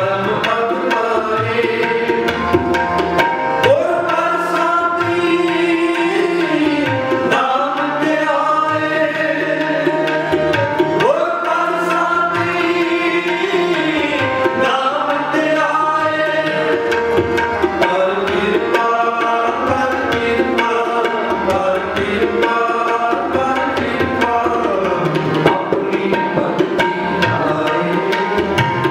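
Sikh kirtan: a man singing a devotional hymn over sustained harmonium chords, with tabla drums keeping the rhythm.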